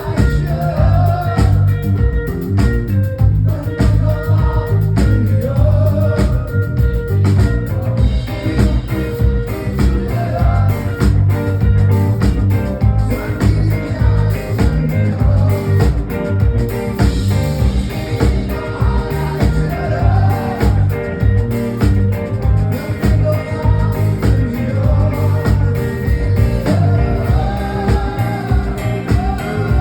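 Live rock band playing with a steady beat and heavy bass.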